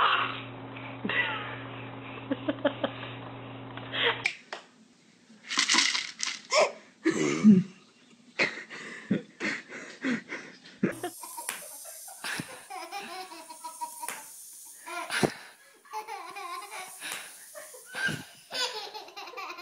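Babies giggling and laughing in short bursts, over a steady low hum in the first few seconds.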